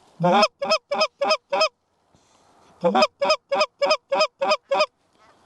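Short-reed Canada goose call blown by a hunter: two runs of calling, each a longer low note that breaks upward into a honk, followed by a quick string of short clucks about three a second. The calling is meant to pull incoming geese into the decoys.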